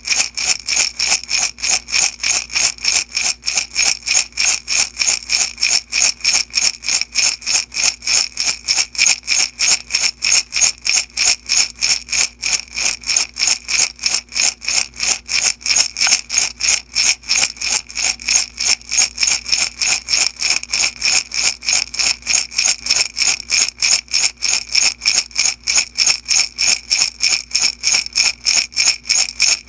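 Small beads shaken in a glass jar, rattling and clinking against the glass in a steady, even rhythm of about three shakes a second.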